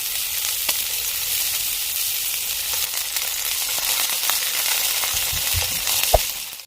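Food frying in a pan: a steady, loud sizzle with scattered small pops. A few low knocks near the end and one sharp clack just before the sound cuts off suddenly.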